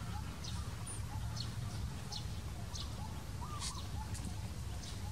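Short, high bird chirps, repeated about once a second, over a steady low rumble.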